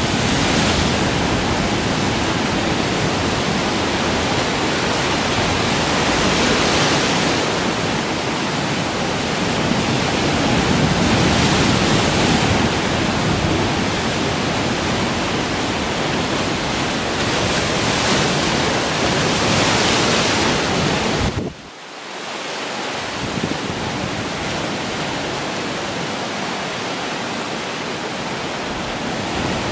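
Ocean waves surging into a rocky cove and breaking over dark volcanic boulders: a continuous rush of surf that swells every few seconds as each wave comes in, with wind on the microphone. About 21 seconds in the sound drops away sharply for a moment, then comes back somewhat quieter.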